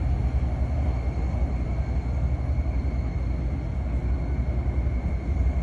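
Steady low rumble of an idling car engine, with a faint steady high tone above it.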